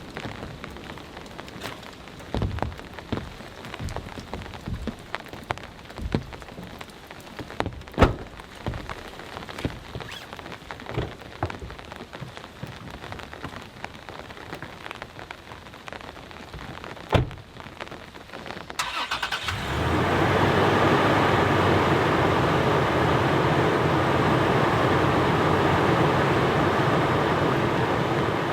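Rain on a tent's rainfly: scattered drops tapping on the fabric, then about two-thirds in a much louder, steady rush sets in as the rain gets heavy.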